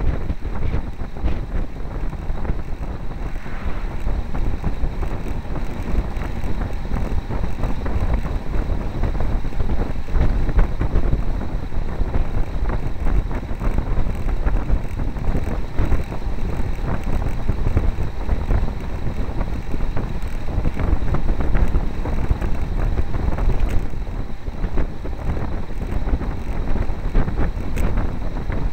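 Wind buffeting the microphone of a camera on a moving road bike: a steady, low, constantly fluttering noise at riding speed.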